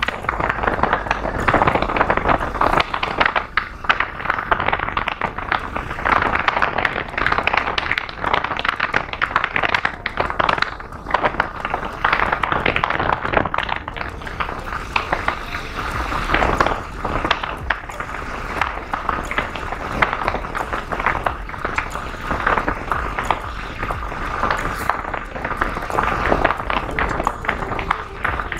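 Riding noise from a moving motorcycle: wind rushing over the microphone with the bike running, rising and falling unevenly.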